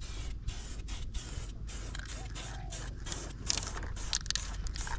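Aerosol spray paint can hissing in many short bursts, each a fraction of a second, as paint is sprayed onto anchor chain.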